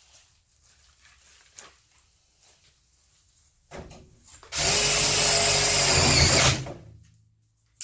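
Cordless drill running steadily for about two seconds, starting about four and a half seconds in, after a brief short spin a second earlier; otherwise only faint handling sounds.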